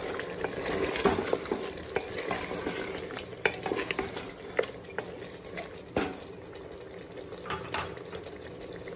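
Wooden spatula stirring sliced onions through mutton in a metal pressure cooker pot, with scraping strokes and small knocks against the pot over a faint sizzle of frying. The strokes thin out over the last few seconds.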